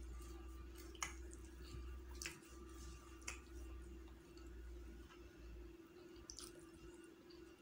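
Faint eating sounds from chicken biryani eaten by hand: a few sharp, wet clicks and soft squishes spaced a second or more apart, over a steady low hum.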